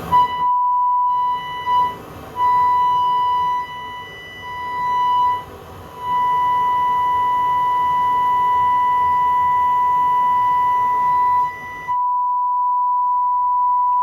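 A steady 1 kHz test tone played through a Pioneer SX-780 stereo receiver during post-repair testing. The tone drops out and comes back several times in the first six seconds, then holds steady. About twelve seconds in, the background hiss and overtones cut off, leaving a clean, pure tone.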